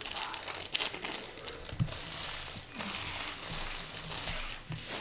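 Foil trading-card pack wrappers being torn open and crinkled by hand, a dense run of crackling with a few soft thumps of handling.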